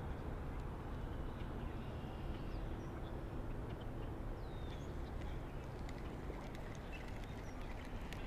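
Steady rush of flowing river water, heavy in the low end, with a few faint, short high bird chirps.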